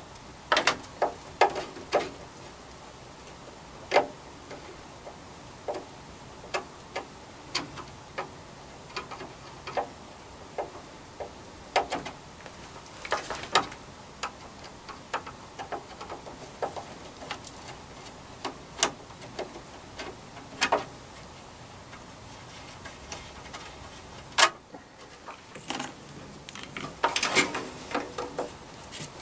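Screwdriver turning screws in a metal amplifier case: scattered sharp clicks and metallic taps as the tip seats in the screw heads and the screws turn, with quick runs of clicks about a second in, midway and near the end.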